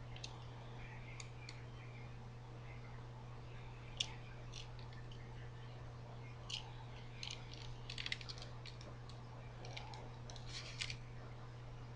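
Small sharp clicks and brief rattles of a thin metal chain and plastic sunglasses frame being handled and pressed together, with a sharper click about four seconds in and denser clusters near eight and eleven seconds, over a steady low hum.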